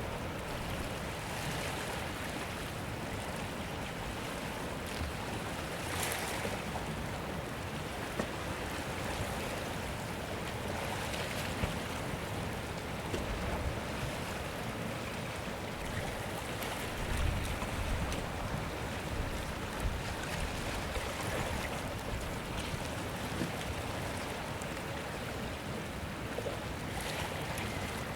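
Sea surf washing in a steady hiss, swelling every five or six seconds as waves break, with one deeper, heavier surge about two-thirds of the way through.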